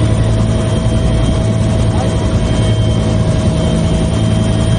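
Helicopter cabin noise heard from inside with the door open: a steady low drone of engine and rotor with a constant high whine over rushing air.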